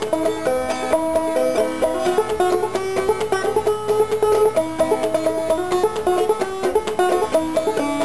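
Five-string banjo played clawhammer style: a quick, steady run of plucked notes with an old-time tune.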